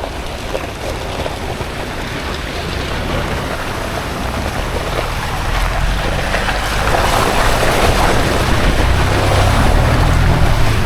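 Ford Bronco driving along a dirt mountain trail: a steady rumble of tyres on the track mixed with wind noise, growing louder over the last few seconds.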